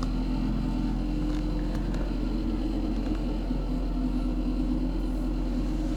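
A steady low mechanical hum with a few faint pitched tones, unchanging and without distinct events.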